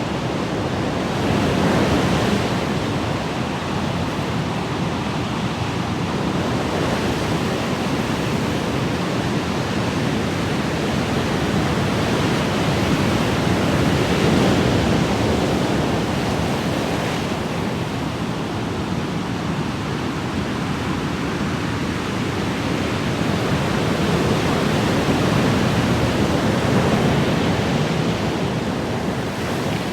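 Ocean waves washing in, a steady rush of surf that swells and eases every several seconds.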